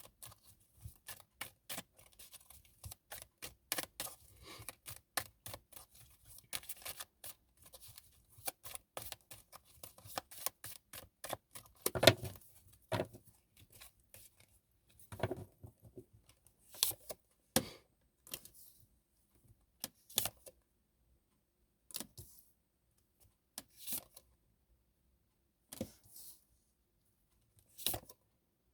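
Tarot cards being shuffled by hand: a rapid run of light card clicks that thins out after about twelve seconds into scattered single clicks, with one louder knock about twelve seconds in.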